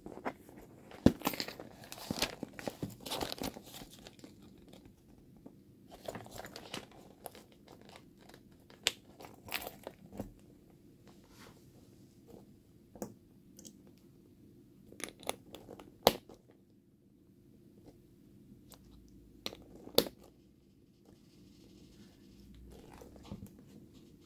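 Handling noise from a faux-leather handbag: rustling and creaking of the flap and strap, broken by sharp clicks as metal snap buttons are pressed onto the snap bases on the flap.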